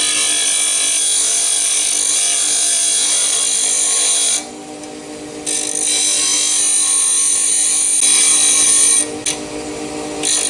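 Bench grinder wheel grinding and rounding off the cut end of a steel threaded rod: a steady hiss of stone on metal over the grinder motor's hum. The hiss breaks off briefly about four seconds in and again near the end as the rod is lifted off the wheel.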